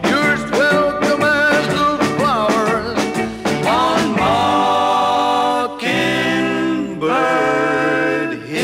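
Music with a singing voice: a melody with sliding notes, then long held notes, breaking off briefly about six seconds in.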